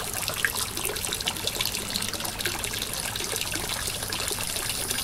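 Garden pond water feature: water trickling steadily down a rock into the pond, with small splashes scattered through.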